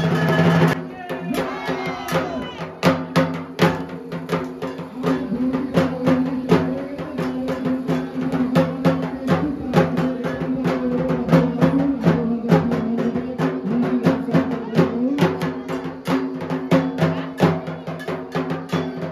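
After a brief snatch of edited background music that cuts off under a second in, live festival drumming from Durga Puja dhak drums: fast, dense rhythmic strikes over a steady drone, with crowd voices mixed in.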